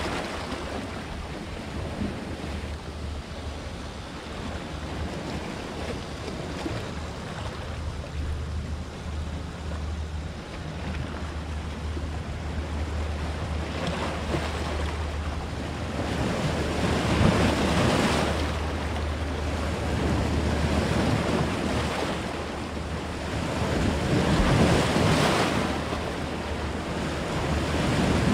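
Sea waves breaking and washing over shoreline rocks, surging louder every few seconds, over a steady low rumble of wind on the microphone.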